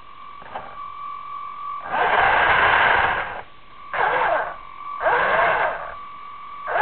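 Small electric motor of a remote-controlled ground vehicle carrying an FPV camera, run in four short loud spurts of whirring with a steady high whine between them.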